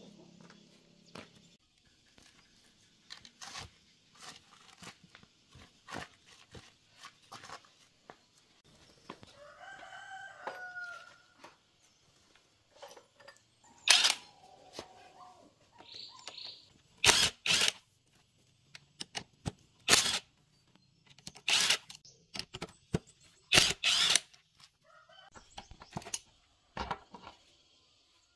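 Cordless impact wrench rattling in about seven short bursts, some in quick pairs, on the bolts of a small single-cylinder diesel engine, with light clinks of tools handled between them. A rooster crows once about ten seconds in.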